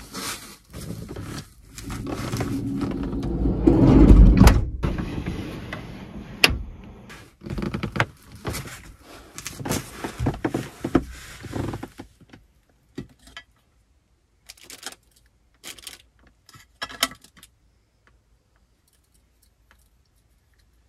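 Rustling, shuffling and knocking of a person moving about on the floor of a small van interior, shifting a floor cushion and things around, with the heaviest thump about four seconds in. About twelve seconds in it gives way to a few scattered small clicks and clatters of items being handled.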